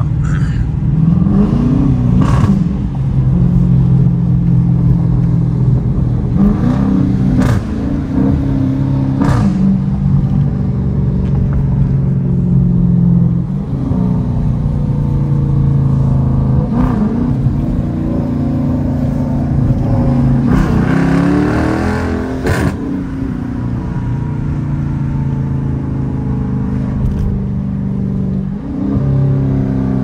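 Dodge Challenger R/T's V8 heard from inside the cabin while driving, through an exhaust with the mid-muffler and resonators deleted. The engine note climbs in pitch under throttle and falls back about seven times as the car accelerates and eases off.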